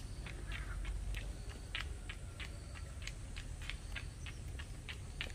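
Quick footsteps of someone running on a wet paved road, about three short steps a second, over a low steady rumble of wind on the microphone.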